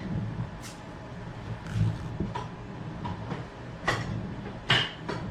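Handmade wooden rivet-molding wheel being handled: about half a dozen short, sharp wooden clicks and knocks at irregular intervals, the loudest about four and five seconds in, over a low steady rumble.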